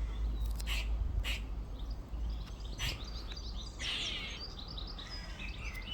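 Grey squirrel calling from a tree: a few short, sharp chucks in the first three seconds, then a raspy buzz about four seconds in.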